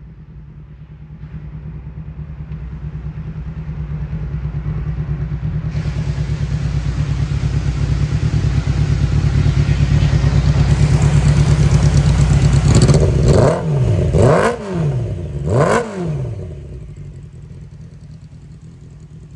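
1996 Honda CBR600's inline-four engine idling in neutral and growing steadily louder, then revved three times in quick succession, each rev rising and falling in pitch, before settling back to a quieter idle.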